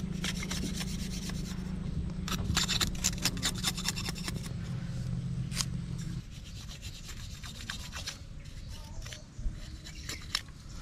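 A knife scraping and shaving bamboo in short rasping strokes, thickest from about two to six seconds in. Under it a steady low hum runs and stops abruptly about six seconds in.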